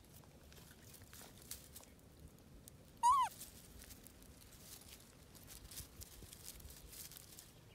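A baby macaque gives one short call about three seconds in, its pitch rising then falling, over faint rustling and clicking of dry twigs and brush.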